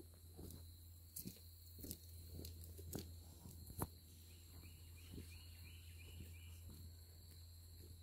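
Footsteps walking over loose, freshly dug garden soil, a few separate soft steps, over a steady low hum. About halfway through comes a short run of faint high chirps.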